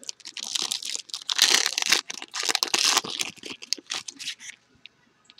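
A foil trading-card pack wrapper crinkling and tearing as it is opened by hand, loudest in the middle and stopping about a second before the end.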